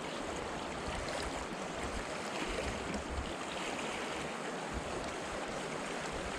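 Steady rushing of a fast, swollen river running high after heavy rain.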